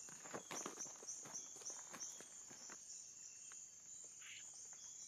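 Footsteps of several people walking on a dirt path during the first three seconds, over steady, rhythmic, high-pitched insect chirping, crickets or katydids, that runs throughout.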